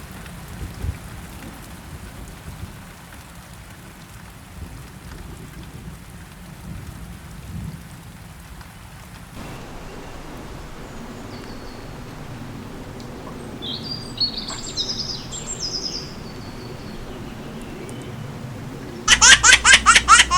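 Steady rain with low rumbles of thunder, then, after a cut, a few high bird chirps, and near the end a baby laughing loudly in repeated bursts.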